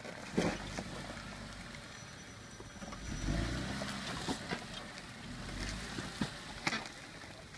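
Jeep Wrangler Unlimited's engine running at low revs as it crawls over rocks, swelling briefly about three seconds in and again later. Scattered sharp knocks and cracks of the tyres and underside on rock and brush.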